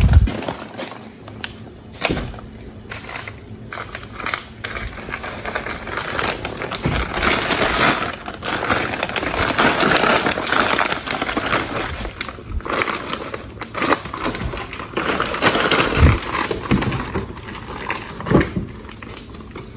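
Groceries being unpacked and put away: packaging and bags rustling and crinkling, with many sharp clicks and knocks and a few dull thuds as items are handled and set down. The rustling is loudest in the middle stretch.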